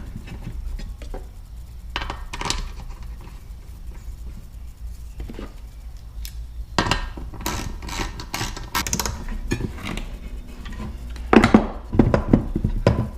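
Metal parts of an outboard recoil starter clinking and knocking as they are handled and fitted back together, in scattered irregular clicks with a louder cluster near the end.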